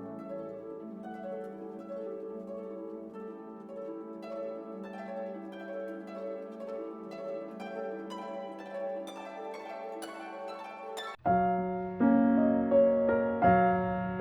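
Background instrumental music: gentle orchestral music with harp-like plucked notes. About 11 seconds in it cuts off suddenly, and louder piano music begins.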